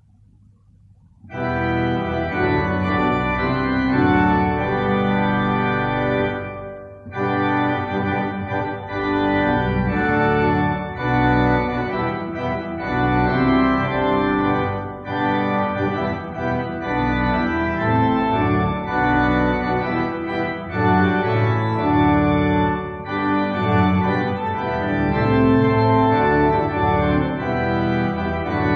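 Organ playing a hymn tune in sustained chords, starting about a second and a half in, with brief breaks between phrases.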